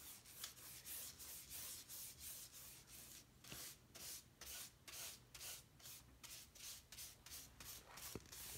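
Paintbrush dragging paint across a wooden cabinet's trim, faint, even back-and-forth strokes at about two to three a second.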